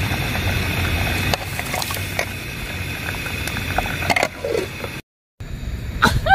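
Fish-ball broth simmering in an aluminium cooking pot: a steady bubbling hiss with a few small clicks. Right at the end comes a short, loud call that falls in pitch.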